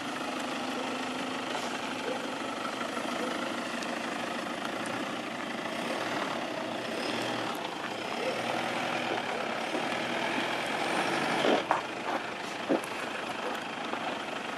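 Toyota Hilux pickup driving, its engine running steadily under a haze of tyre and road noise, with a few sharp knocks near the end.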